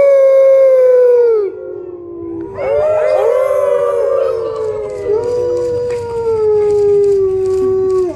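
Wolves howling: one long howl that slowly drops in pitch breaks off about a second and a half in, then several wolves join in overlapping howls at different pitches, which stop abruptly together at the end.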